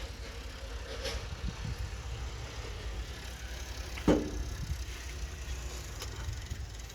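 1996 Hino FR truck's diesel engine idling with a steady low, pulsing rumble. A brief sharp sound, the loudest moment, cuts across it about four seconds in.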